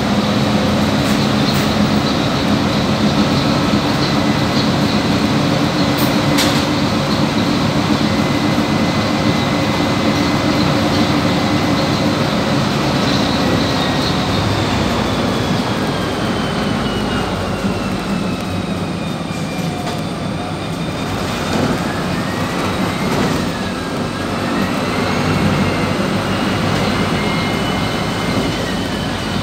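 Interior running noise of a PAZ 320414-14 bus on the move, with a high whine over the drivetrain. The whine drops in pitch about halfway through, then rises, dips and rises again as the bus's speed changes.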